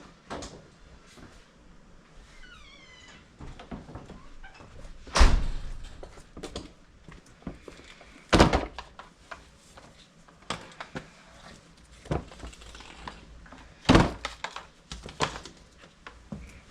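A series of knocks and thumps from objects being handled in a small workshop, with three loud thuds spread through it and a short squeak about two seconds in.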